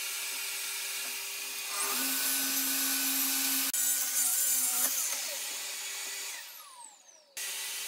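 DeWalt plunge track saw running along its guide rail, cutting through a wooden board with a steady motor whine and hiss that grows louder about two seconds in. Near the end the blade winds down with a steeply falling whine, and the sound jumps abruptly twice.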